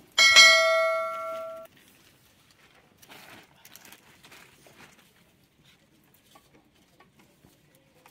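A single bright bell-like chime about a quarter second in, fading out over about a second and a half: the notification-bell sound effect of a subscribe-button overlay. Faint rustles follow.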